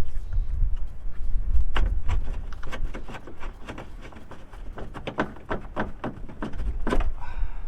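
Irregular clicks and knocks of hand and tool work on an old intercooler pipe whose rubber has gone rock hard, as it is worked off. The clicks come thickest after the first couple of seconds, over a low rumble.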